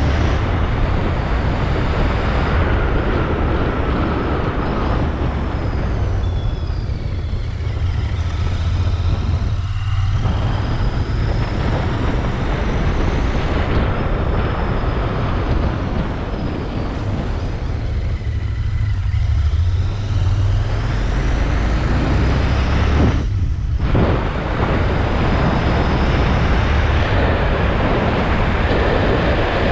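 Royal Enfield Interceptor 650's parallel-twin engine and exhaust running steadily while cruising, mixed with road and wind rush, dipping briefly a few times.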